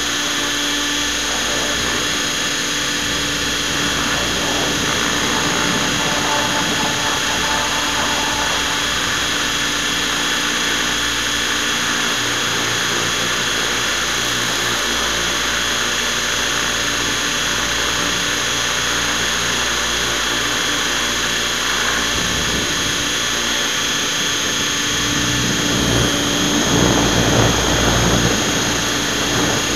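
Radio-controlled helicopter's motor and rotor running steadily in flight, heard close up from a camera mounted on the helicopter itself, with a steady whine over the rotor noise. The sound grows louder for a couple of seconds near the end.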